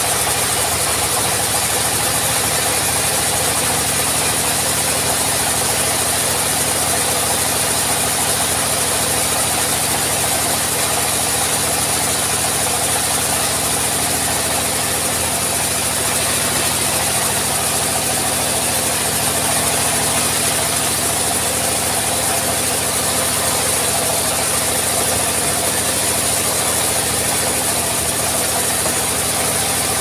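Engine-driven vertical band sawmill running steadily while a teak log is fed through the blade. The engine and a high cutting hiss go on without a break.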